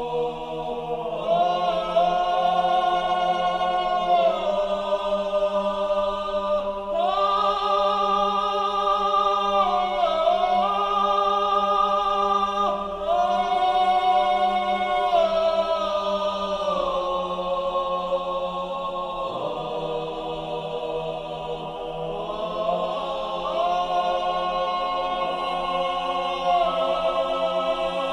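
Background music: slow choral-style voices holding long chords that change every few seconds, over a steady low drone.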